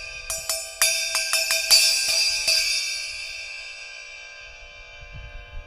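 Repaired Sabian 16-inch HHX Evolution crash cymbal, cut down into a splash after crack damage, struck about ten times in quick succession over the first two and a half seconds, then ringing out and fading away.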